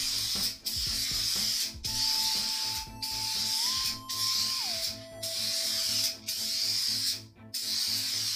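Aerosol spray paint can spraying in a run of short blasts, each about a second long with a brief break between, nine or so in all.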